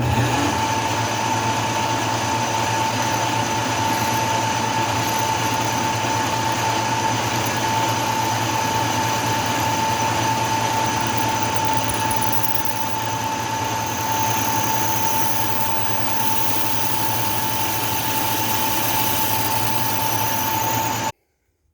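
Lathe running with a 5/16-inch drill bit feeding through a bolt hole in an aluminum cylinder head: a steady machine noise with a high whine, stopping suddenly near the end. The bit was later judged not a very good drill bit.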